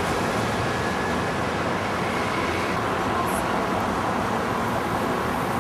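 Steady street traffic noise, a continuous even rumble and hiss of passing vehicles.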